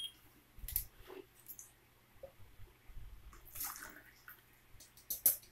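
Faint handling of a metal pot, with a few light clicks and knocks, and liquid sloshing and trickling as the pot is tipped.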